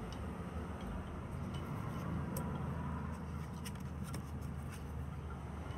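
A steady low background hum, with a few faint clicks and taps of oracle cards being handled and turned over about midway.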